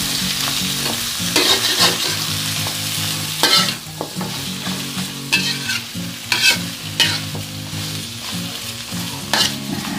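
Broccoli, carrot and egg sizzling in a hot metal wok while a metal spatula stirs and scrapes them, a scrape every second or two. The sizzle is loudest in the first few seconds.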